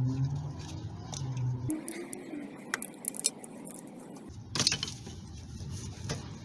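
Metal hand tools clinking and knocking as sockets are handled and swapped, with a louder clatter about four and a half seconds in. A low hum runs for the first couple of seconds and then stops.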